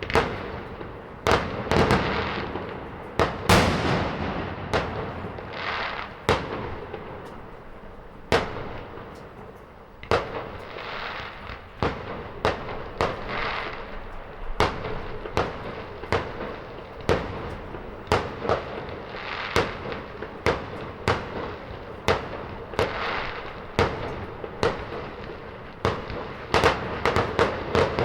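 Fireworks going off: a steady run of sharp bangs at irregular intervals, many followed by crackling, over a continuous wash of distant explosions, growing denser near the end.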